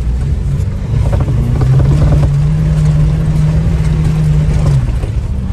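Lada Niva 4x4's 1.7-litre four-cylinder petrol engine working hard under load, heard from inside the cabin. From about a second and a half in, its note holds steady at high revs, then breaks off near the end.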